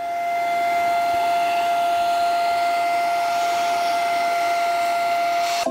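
Vacuum cleaner running, its hose and brush attachment sucking dirt and debris out of a window sill track: a steady high motor whine over the rush of suction air, cutting off suddenly at the end.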